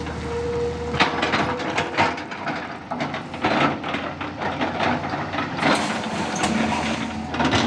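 Tata Hitachi 200 hydraulic excavator's diesel engine running steadily under irregular clattering knocks and scraping, typical of the bucket working soil and stones.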